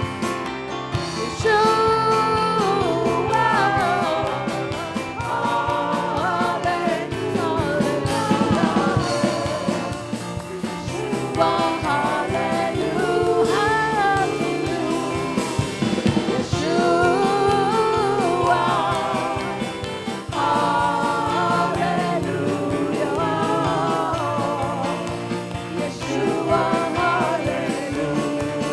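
Live worship band music with singing: a melody sung over guitar and drums, playing steadily without a break.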